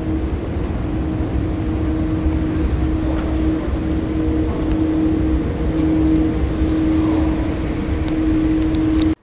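Steady mechanical drone with a constant low hum tone running through it. It cuts off suddenly near the end.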